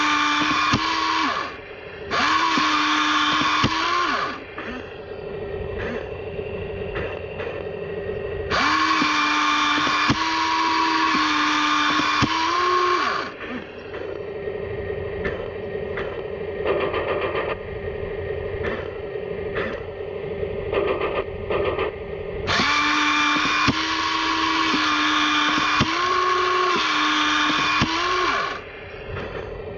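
Heng Long Walker Bulldog 1/16 RC tank driving on newly fitted gearboxes: its electric drive motors and gears whine in four bursts of a few seconds each, at a steady pitch that rises slightly near the end of each burst. Between the bursts there is a lower clatter with clicks.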